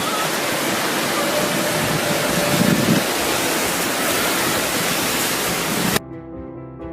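Ocean surf: a steady, loud wash of breaking waves. About six seconds in it cuts off suddenly and soft piano and string music comes in.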